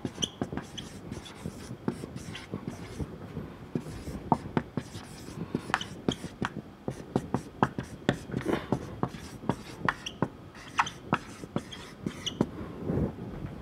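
Marker pen writing on a whiteboard: a string of irregular short strokes and squeaks as letters are written.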